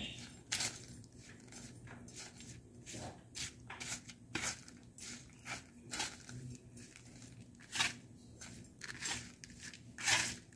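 Perforated steel skimmer scraping and pressing air-fried bitter gourd (karela) slices across parchment paper on a baking tray: a run of short, irregular crackly scrapes, several a second, with two louder ones near the end.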